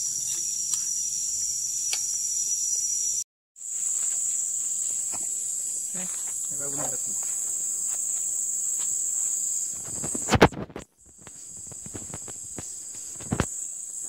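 Steady high-pitched drone of insects in tropical forest, cutting out briefly a little after three seconds in and again near eleven seconds, just after a loud bump.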